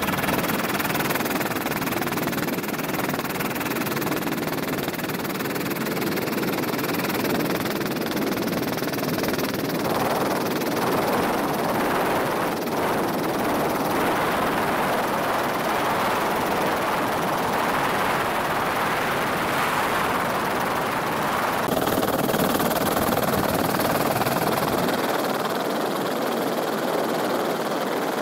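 Helicopter in flight heard from on board: steady engine and rotor noise.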